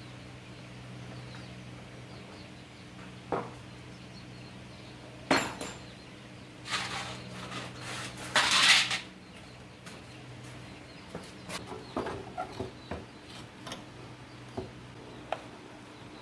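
Metal tools and parts clinking and knocking as they are handled, with a rattling scrape of about a second midway, over a steady low hum.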